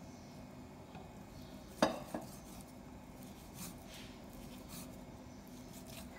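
Kitchen knife cutting fried fish cake on a wooden chopping board. One sharp knock of the blade on the board about two seconds in is followed by a smaller one, then a few soft taps.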